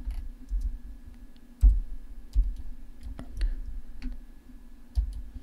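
Computer mouse clicks and keyboard key presses: about seven single clicks at uneven intervals, some with a dull low thump, the loudest about a second and a half in, over a faint steady hum.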